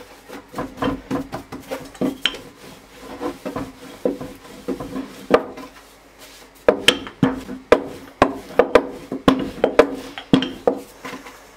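Wooden rolling pin rolling dough back and forth on a wooden board, with rubbing and many quick irregular wooden knocks and clicks. The knocks get louder and come faster a little past halfway.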